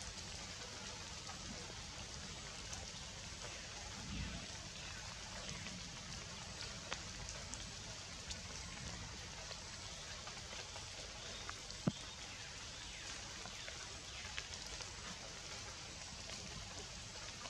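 Steady rain falling through tree foliage, with scattered drip ticks, a low thump about four seconds in and a sharper tap about two-thirds of the way through.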